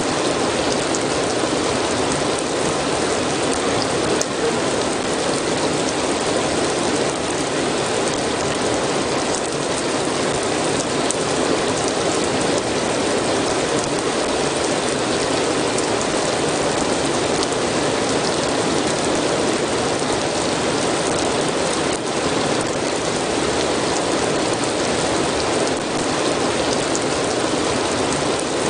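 Steady rain falling, an even, unbroken wash of noise with a few sharper drops ticking through it.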